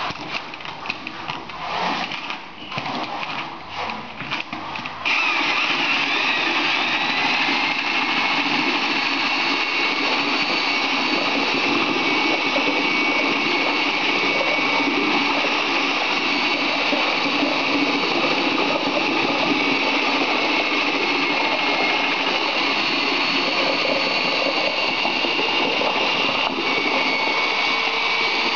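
Corded electric drill with a mixing rod churning render in a plastic bucket. It runs unevenly for the first five seconds, then steadily with a high motor whine.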